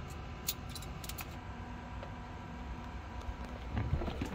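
A few light clicks and taps of multimeter probes and wire connectors being handled, over a low steady hum.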